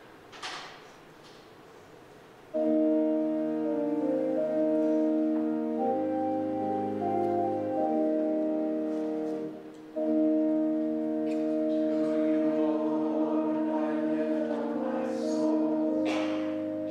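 Organ playing sustained hymn chords that start suddenly about two and a half seconds in, with a short break partway through; a brief rustle comes just before it. In the second half, wavering voices seem to join the held chords.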